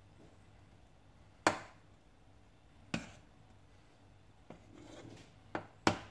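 Metal spoon knocking sharply while smoothing cheesecake topping in the tin: single knocks about a second and a half in and about three seconds in, then two quick knocks close together near the end, with a faint scrape just before them.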